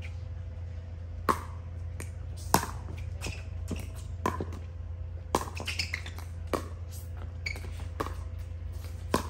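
Pickleball rally: sharp pops of paddles hitting the plastic ball, about one a second, over a steady low hum.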